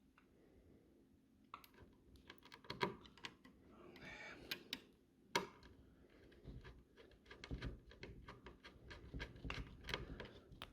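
Faint, irregular clicks and light scrapes of a small screwdriver turning the tiny retaining screw that holds an M.2 NVMe SSD down on the motherboard, starting about a second and a half in.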